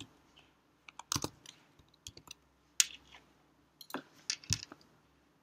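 Keystrokes on a computer keyboard: a dozen or so separate clicks, typed unevenly in short runs with pauses between them.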